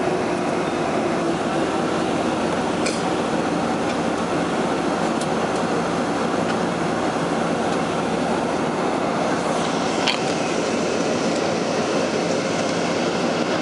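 Steady cabin noise inside a Boeing 777-300 while it taxis: engine hum and air-conditioning rush blended into one even roar. A brief click comes about three seconds in and another about ten seconds in.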